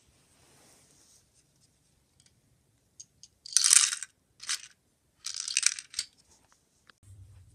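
Lego City 60118 garbage truck's plastic parts clattering in three short rattling bursts, the loudest about three and a half seconds in, with a sharp click near the end, as its front-loader arms are raised over the container and lowered again.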